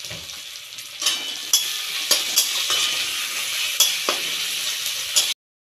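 Onion, tomato and bay leaf sizzling in hot oil in a kadai, with salt and turmeric just added, while a flat metal spatula stirs and scrapes against the pan. The stirring starts about a second in, with a string of sharp scrapes over the sizzle, and the sound cuts off suddenly near the end.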